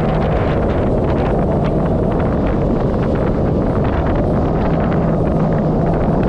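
Wind buffeting the microphone and water spray rushing over the steady drone of a Kawasaki Ultra 310LX jet ski running at about 55 km/h, with a faint low engine hum.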